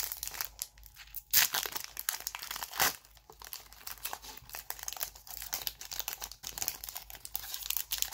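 Foil Pokémon booster pack wrapper crinkling and being torn open by hand, a dense crackle with two sharper, louder rips about one and a half and three seconds in.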